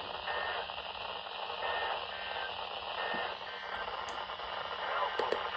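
Weather-radio receiver hissing with static, with three faint short bursts of paired high data tones about a second and a half apart, typical of the SAME end-of-message code that closes an emergency alert broadcast. The hiss cuts off abruptly at the very end.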